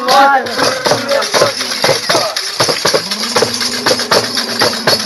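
Bear-dance troupe's rhythmic percussion, with fast, dense beats and steady jingling like tambourines or bells. Shouts come at the start and a long held call near the end.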